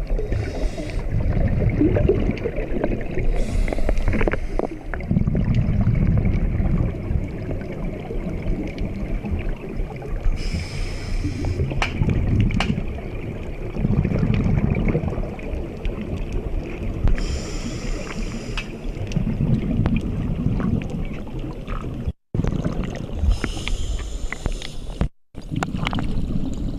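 Scuba diver breathing through a regulator, heard from a helmet camera underwater: a short hissing inhalation every few seconds, with loud rumbling rushes of exhaled bubbles between them. The sound cuts out briefly twice near the end.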